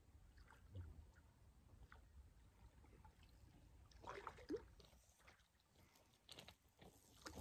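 Faint splashing and swirling of a hooked fish at the water's surface as it is played in close, loudest in a short burst about four seconds in.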